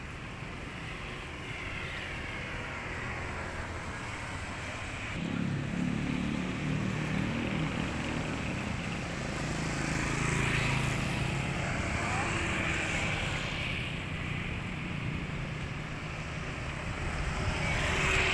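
Road traffic on a city street: motorcycles and other vehicles passing, with an engine hum coming in about five seconds in and several whooshing passes, the loudest near the end.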